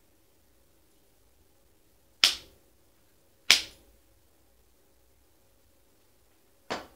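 Sharp clicks from a Grivel steel crampon being handled: two loud clacks about a second and a quarter apart, then a softer one near the end.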